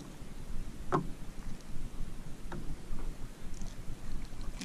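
Water lapping against a kayak on a calm sea, with two light knocks about a second and two and a half seconds in as a freshly caught fish and its lure are handled on the kayak.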